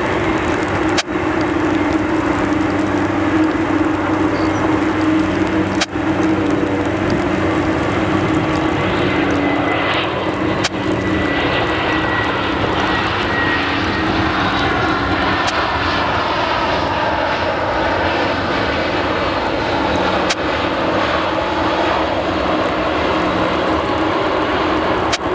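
Air Canada Airbus A321's jet engines running, a steady drone with a faint high whistle that drifts slightly lower in the middle. A few sharp clicks break in.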